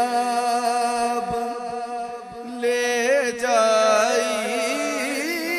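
Male voice singing an Urdu noha (lament) without words: a long held note, then from about two and a half seconds in a wavering, ornamented run with vibrato, over a steady drone.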